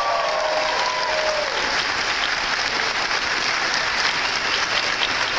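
Large audience applauding steadily, with a few long held cheers in the first second and a half.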